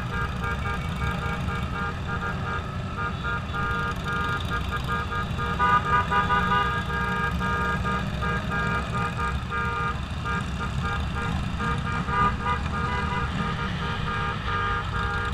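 Low, steady rumble of a moving motorcycle's engine and wind, with vehicle horns honking on and off over it, several notes at once.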